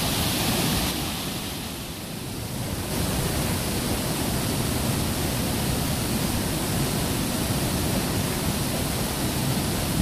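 Twin waterfall plunging into its pool: a steady rushing of falling water, a little louder from about three seconds in.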